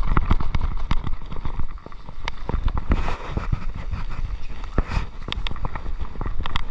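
Mountain bike rattling and clattering over a rough dirt trail: quick, irregular knocks and clicks over a steady low rumble of wind on the microphone.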